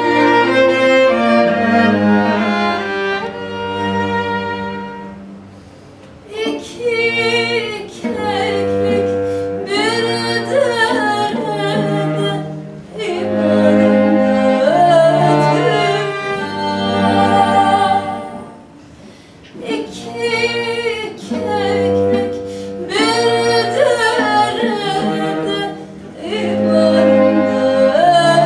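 A woman singing a Turkish folk song, with ornamented, bending melody lines, accompanied by a bowed string trio of violin, viola and cello, the cello holding low notes. The strings play alone for the first few seconds before the voice comes in, and the song moves in phrases with brief drops in between.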